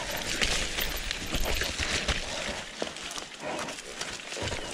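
Mountain bike descending a muddy enduro trail: a steady rushing noise from tyres on wet dirt and air, with scattered knocks and rattles from the bike over bumps.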